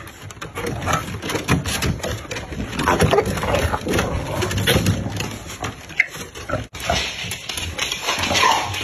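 Chow chow puppies vocalizing as they play-wrestle, a string of irregular calls, broken off briefly by a sudden gap about two-thirds of the way through.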